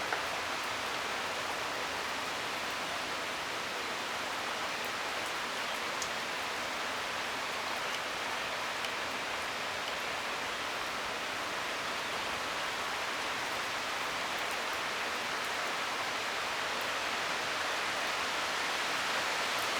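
Steady hiss of rain falling, slowly getting louder toward the end as a thunderstorm's rain picks up.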